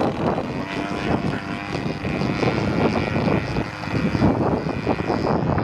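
Engine of a 35cc radio-controlled Taylorcraft model plane running at a steady pitch, its propeller buzzing as the plane flies overhead.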